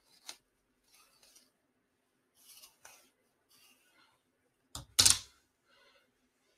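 A comb pulled through long straight synthetic crochet braiding hair: a series of short, scratchy swishes, with one louder swish and thump about five seconds in.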